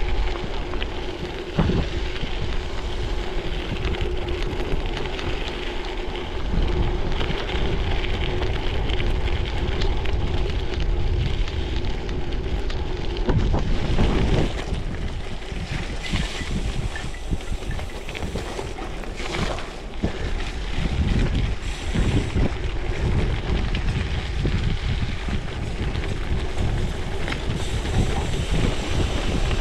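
Wind buffeting a chest-mounted action camera's microphone while a gravel bike rolls over gravel: a steady rumble and crunch from the tyres with scattered short jolts from bumps in the road.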